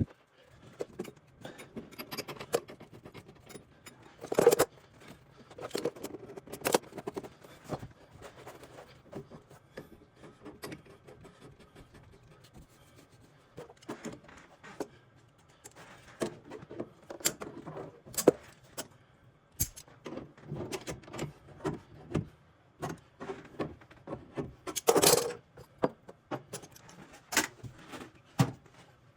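Metal hand tools and pipe fittings clinking and scraping in irregular sharp clicks, with longer scrapes about four seconds in and again near the end.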